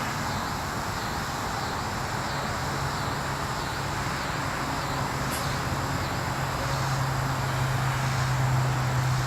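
Outdoor background: a low, steady hum that grows louder over the last few seconds, under a constant noise haze, with a faint high call repeating about twice a second.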